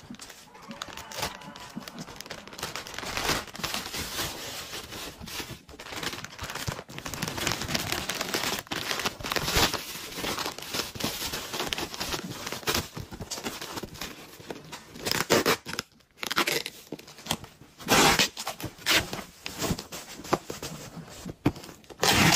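Clear plastic bags and bubble wrap crinkling and rustling as a cardboard box is packed by hand. Several loud ripping strokes come in the last few seconds as packing tape is pulled off the roll.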